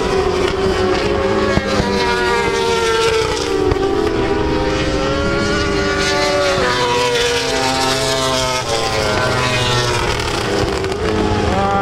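World Superbike racing motorcycles passing at speed, several engine notes overlapping. The notes rise and fall as the bikes change gear and go by.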